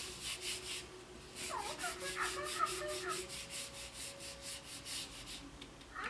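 Hands rubbing the plastic shell of a Hatchimal egg toy in quick, regular strokes, answering the egg's blue 'scared' light, which asks for it to be rubbed or tapped.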